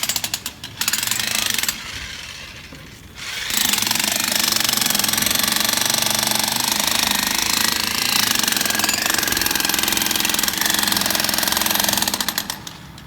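Jackhammer breaking concrete from a freshly poured column. It gives a few short bursts at first, then after a pause runs continuously for about nine seconds before stopping near the end.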